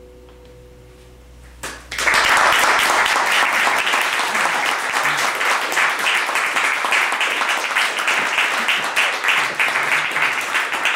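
Two sustained tones of the Lattice Harp's last notes die away, then about two seconds in an audience breaks into steady applause.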